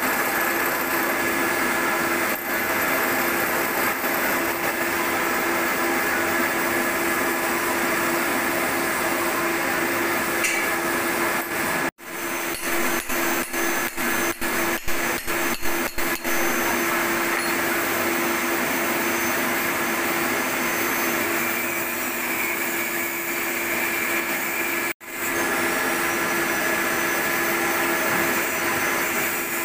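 Milling machine running and cutting the flats of a hexagon nut: a steady motor hum with cutter noise. The sound drops out abruptly for an instant about twelve seconds in, followed by a few seconds of rapid short breaks and knocks, and drops out once more near the end.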